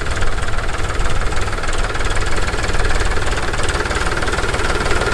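Powertrac 439 Plus tractor's three-cylinder diesel engine running steadily as the tractor drives through the field, with a fast, even low throb.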